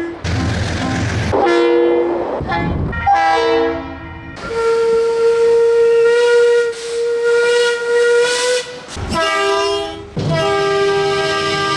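A run of train warning signals. First several air-horn blasts, short and long, with rumbling noise between them. Then a steam locomotive's whistle is held on one steady note for about four seconds. Then comes a short horn blast, and a long steady horn chord begins near the end.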